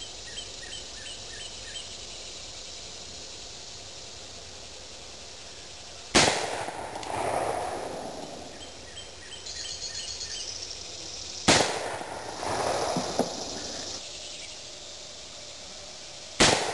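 Three shots from a Pietta replica Remington 1858 New Model Army .44 cap-and-ball revolver loaded with black powder, about five seconds apart. Each is a sharp bang followed by a rolling echo that lasts a second or so.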